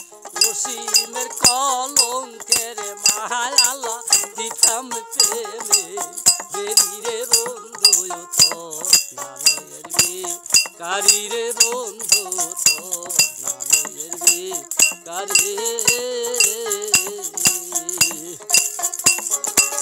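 Folk music on a dotara, a plucked Bengali lute, strummed with a plectrum: a wavering, sliding melody over a steady beat of regular sharp clicks.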